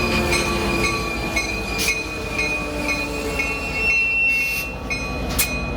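Amtrak passenger train rolling past: steady rail and wheel noise with a high, thin squeal that keeps cutting in and out. Two sharp clicks come through, one about two seconds in and one near the end.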